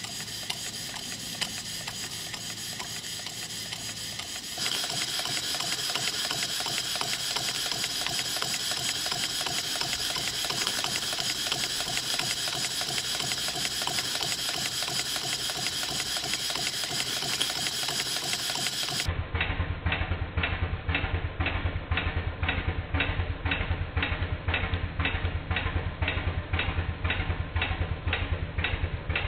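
Model Stuart vertical steam engine running in steam, a steady hiss with fast light mechanical ticking. From about two-thirds of the way in, the OS Stephenson's Rocket live-steam model beats out regular sharp exhaust chuffs, about three a second.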